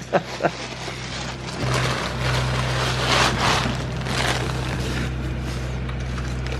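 Rustling and brushing right against the microphone, over a steady low hum that sets in about two seconds in.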